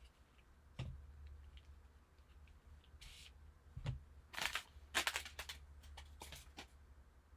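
A trading-card pack being opened and its cards handled: a few light clicks, then several short rustling, scraping bursts through the middle, over a steady low hum.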